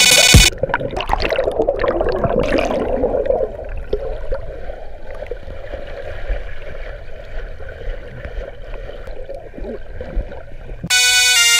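Water heard from underwater in a swimming pool: muffled churning and bubbling, busiest over the first few seconds as the body plunges in, then settling to a softer steady wash. Electronic music cuts off just after the start and cuts back in shortly before the end.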